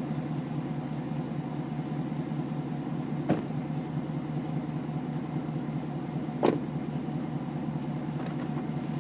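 2021 Camaro 2SS's 6.2-litre LT1 V8 idling steadily through an MBRP cat-back exhaust, with two brief sharp sounds about three seconds apart.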